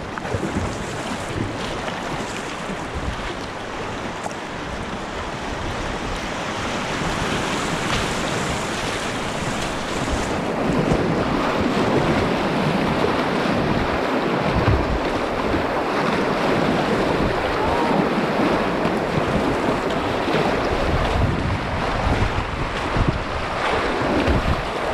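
Rushing river rapids and splashing water around a whitewater kayak, with paddle strokes in the water and wind buffeting the camera microphone. The water gets louder about ten seconds in as the kayak runs into rougher whitecapped water.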